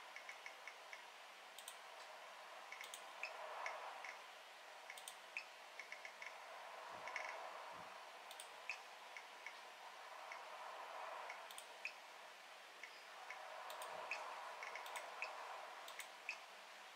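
Faint, irregular small clicks and ticks from navigating a game's pause and settings menus on a laptop, with three dull soft thumps about seven, eight and fourteen seconds in.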